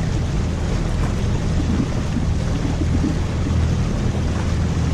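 Steady rush of water along the hull of a sailboat under way, with wind buffeting the microphone as a constant low rumble.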